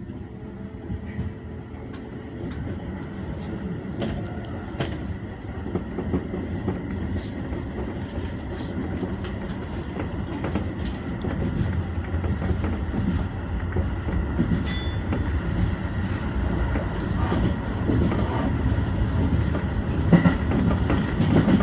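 Keio Line electric train heard from inside the car, running along the track and gathering speed, its low rumble growing steadily louder with wheels clicking over the rail joints.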